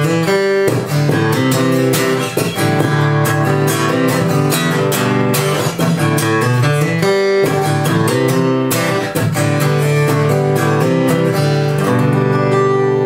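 Acoustic guitar played solo, a steady run of chords with no voice. Near the end a final chord is struck and left ringing.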